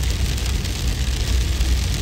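Steady, deep wind rumble under a dense, even hiss of hail falling.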